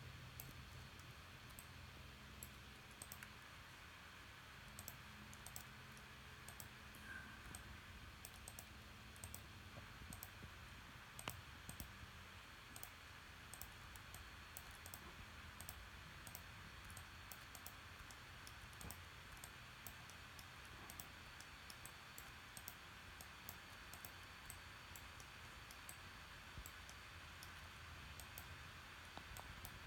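Faint, irregular clicking of computer mouse buttons, a few clicks a second, over a low steady hum.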